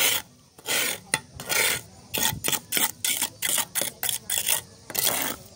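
Steel brick trowel scraping and spreading wet mortar on concrete, in a series of short, quick rasping strokes.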